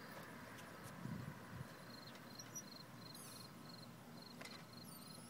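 Faint outdoor ambience: a child's tricycle rolling slowly on a concrete sidewalk, with a low rumble about a second in. A short high chirp repeats about twice a second throughout.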